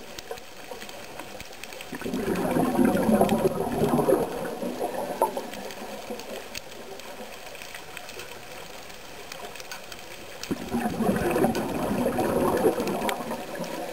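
Scuba diver's exhaled bubbles gurgling out of the regulator, heard underwater through the camera housing: two long exhalations about eight seconds apart, with a quieter underwater hiss and faint clicks between them.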